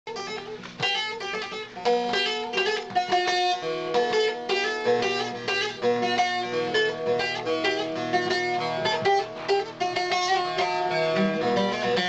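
A bağlama (Turkish long-necked saz) playing a fast instrumental introduction to an aşık folk song, with quick runs of plucked notes.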